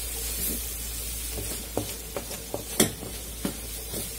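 Sliced onions and spices sizzling in oil in a metal karahi while a spatula stirs them, scraping and knocking against the pan several times, loudest a little under three seconds in. The onions are frying down with the spice mixed through them.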